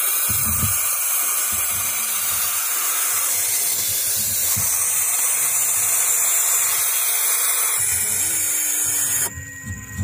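Barn owl chicks hissing in the nest box: a loud, continuous rasping hiss that breaks off about nine seconds in.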